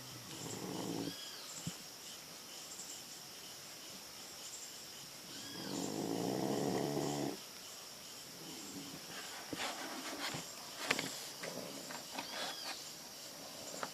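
Small female dog snoring: a short snore near the start and a longer, louder one around the middle. A few sharp clicks follow near the end.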